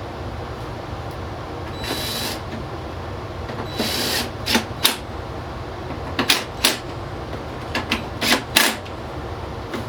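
Snowblower parts being handled during reassembly: a short scrape, then irregular sharp clicks and clacks of plastic and metal parts being fitted and worked.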